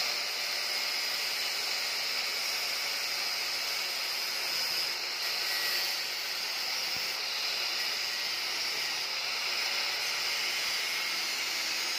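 Angle grinder with a thin disc grinding away the excess of a stainless steel ring fitted over a bicycle frame's head tube: a steady, high-pitched hiss of the disc on metal.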